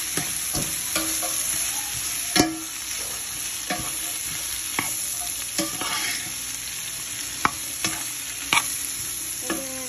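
Sliced cabbage, carrots and garlic sizzling in oil as they cook down in a stainless steel pot, stirred with a spoon that scrapes and knocks against the pot at irregular moments, the loudest knock about two and a half seconds in.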